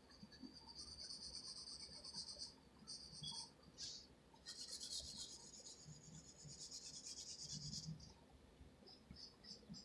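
Yellow wooden graphite pencil scratching faintly on paper in sketching strokes: a run of strokes for about two seconds, a couple of short ones, then a longer stretch of quick back-and-forth shading from about four and a half to eight seconds in.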